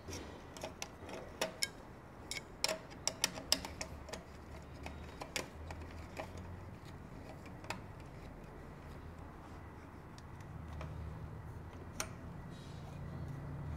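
Ratchet wrench clicking in short, irregular runs as the bolt and nut on a motorcycle exhaust clamp are tightened, thinning out to a few single clicks in the second half.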